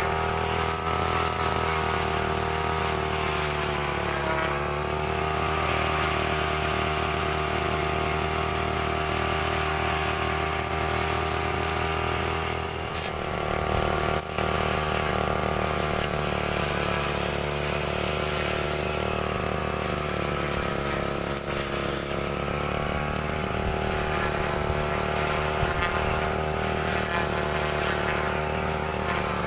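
STIHL FR 3001 backpack brushcutter's two-stroke engine running steadily, its speed wavering a little up and down, with a short dip about 13 seconds in.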